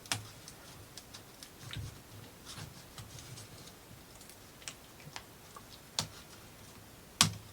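Scattered light clicks and taps of thin plywood model-kit pieces being handled and sorted, with a sharp click about six seconds in and the loudest one just after seven seconds.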